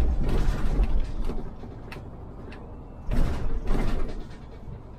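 Iveco Urbanway 12 city bus doors working: two noisy bursts of about a second each, some three seconds apart, with sharp clicks between them, over the low rumble of the bus.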